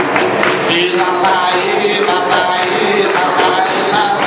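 Live Afro-Brazilian show music: a group of voices singing a chant over a steady, fast drumbeat on barrel drums.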